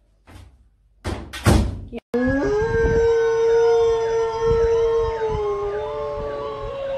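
A few loud thumps in the first two seconds, then a golden retriever howling in one long, slowly falling note along with a fire truck siren wailing from a television.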